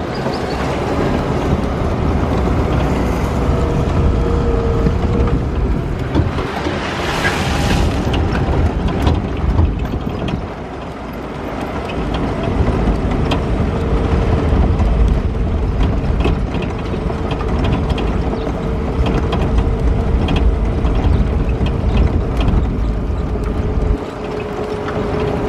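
Inside the cab of a small off-road vehicle driving slowly over a dry gravel riverbed: the engine runs steadily with a constant whine, while loose stones click and crunch under the tyres and the body rattles.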